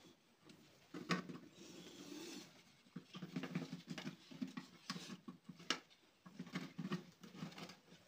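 Plastic jar scraping and rustling against a plaster wall, with a few sharp clicks and taps, as a small snake is coaxed into it.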